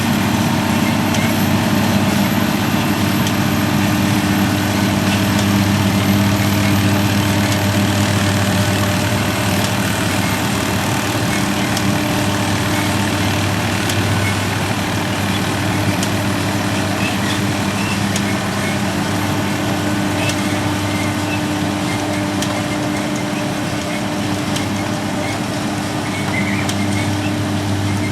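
Heavy diesel farm machinery running steadily under load at a potato harvest, a constant low engine drone with mechanical noise over it.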